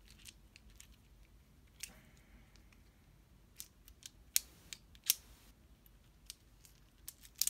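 Aluminium-alloy infinity cube fidget toy clicking as its hinged blocks are folded over and flipped in the hand: scattered sharp clicks, with a few louder ones about halfway through and near the end.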